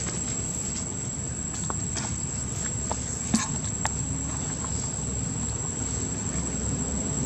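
Outdoor ambience: a steady high-pitched insect drone over a low rumble, with a few faint clicks and one sharper click about three and a half seconds in.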